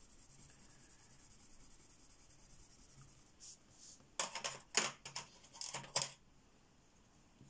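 Faint room tone, then about three and a half seconds in a quick run of light clicks and clatters lasting roughly two and a half seconds: wooden Giorgione coloured pencils knocking against each other as one is put away and the next picked out.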